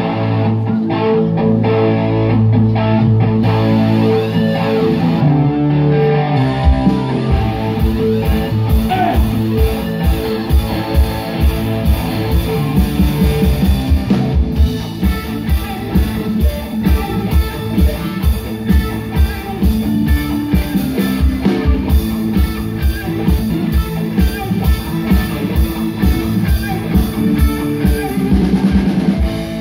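Live rock band playing an instrumental passage: electric guitar and bass alone at first, then the drum kit comes in after about six seconds with a steady beat under the guitars.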